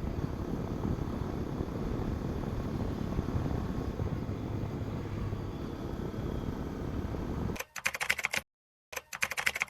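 A steady low mechanical rumble, then rapid ticking in two short runs near the end, each cutting off abruptly.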